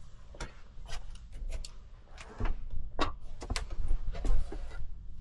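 Handling noises: scattered light clicks and knocks, with a stretch of low thumps and bumps in the middle.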